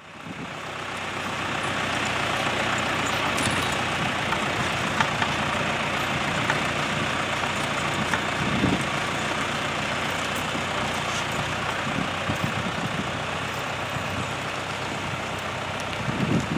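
Farm tractor engine running steadily as it pulls a log on a chain through snow, with a couple of low thumps about halfway through and near the end.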